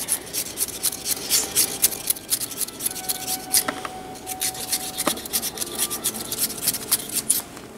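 Vegetable peeler shaving a carrot in quick repeated strokes, about four short scraping rasps a second, stopping shortly before the end.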